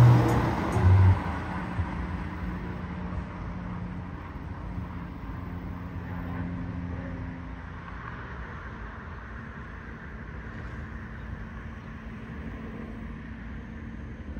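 Street traffic noise: a loud low rumble of a passing vehicle in the first second, settling into a steady, fainter traffic hum.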